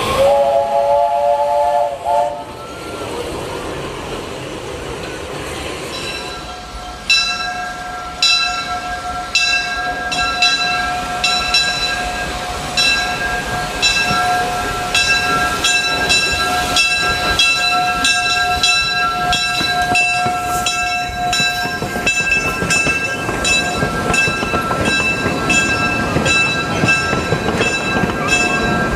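A train whistle sounds a short chord at the start. From about six seconds in, a long steady whistle tone holds while regular ringing metallic strikes repeat, about one a second at first and faster later.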